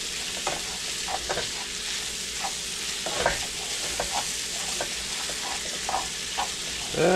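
Floured chicken breasts searing in melted butter in a frying pan: a steady sizzle with short crackles every second or so.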